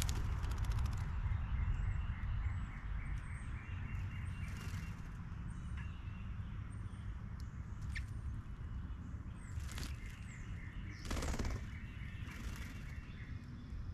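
Eastern bluebird splashing and fluttering in a birdbath, in short bouts of splashing with the heaviest at the start. Small birds chirp in the background over a low steady rumble.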